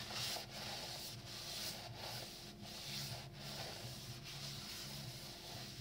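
Paper shop towel rubbed in repeated strokes, a bit more than one a second, against a freshly honed engine cylinder wall, wiping off honing-stone grit and metal shavings.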